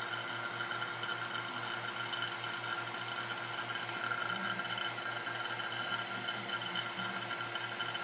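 Vacuum pump running steadily as it draws down a chamber of ice water. It makes a low hum with a fast, even pulse and a steady higher whine above it.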